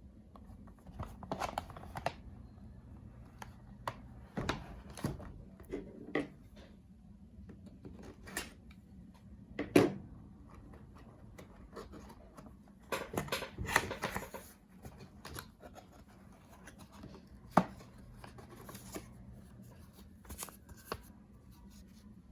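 Packaging and bottles being handled during an unboxing: scattered rustling, clicks and light knocks, the sharpest knocks about ten seconds in and near eighteen seconds.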